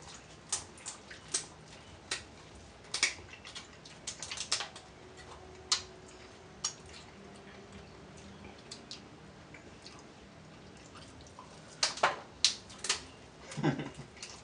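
Eating sounds from a seafood boil: irregular sharp clicks and smacks of chewing and of crab shells being worked open, with a louder cluster about twelve seconds in.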